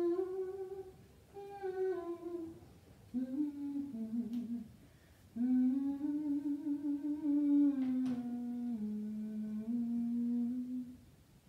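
A woman humming a slow melody with long held notes, in short phrases with brief breaks. The last phrase is the longest and steps down to lower notes before it stops near the end.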